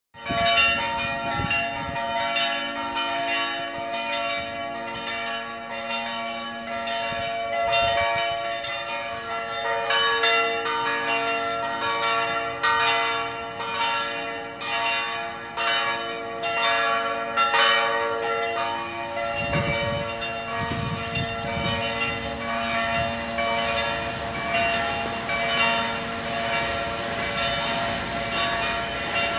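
Church bells pealing: several bells struck over and over, their strokes overlapping and each tone ringing on under the next.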